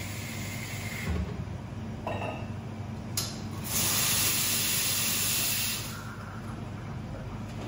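Espresso machine letting off a loud, steady hiss of steam for about two seconds, starting just after a click, over a steady low machine hum.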